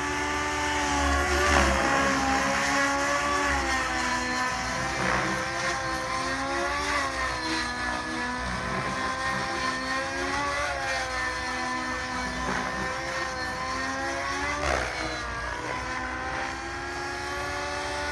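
Nitro two-stroke glow engine of a SAB Goblin 700 RC helicopter running at flight speed along with its rotor, its pitch sagging briefly and recovering several times as the Maxx governor holds head speed through manoeuvres.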